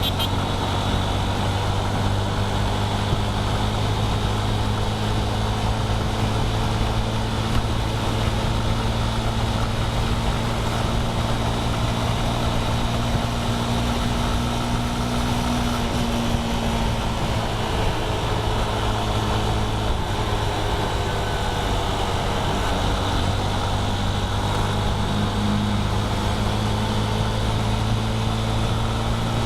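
A vehicle cruising on a highway: a steady engine drone under a constant rush of road and wind noise, its pitch shifting slightly now and then.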